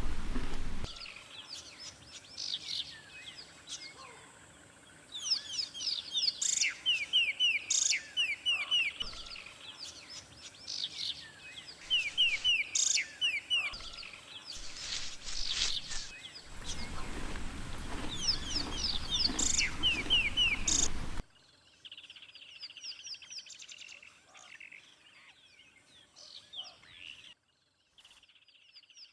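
A chorus of birds calling, with rapid runs of short high chirps overlapping one another, and at times a low rumbling noise underneath. About three-quarters of the way through, the sound cuts abruptly to quieter, sparser birdsong.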